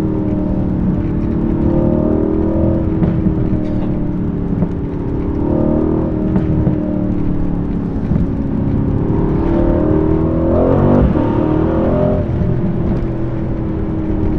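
Mercedes-AMG C63 S's 4.0-litre twin-turbo V8 heard from inside the cabin under way, its pitch swelling and dipping as the throttle is worked, with a strong rise in revs about ten seconds in before it eases off again. A few sharp exhaust pops break through.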